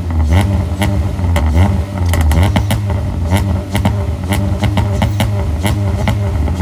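Honda H22 2.2-litre four-cylinder in a 1992 Civic, breathing through an aftermarket header and a single large exhaust tip, being revved in repeated short blips that rise and fall, with frequent sharp cracks between them.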